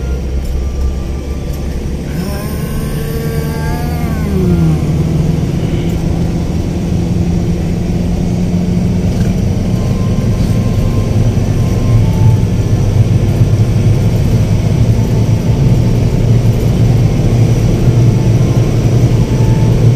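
Car engine and road noise heard from inside the cabin while driving at highway speed, getting steadily louder as the car accelerates to about 100 km/h. Gliding tones come about two to four seconds in, followed by a falling note.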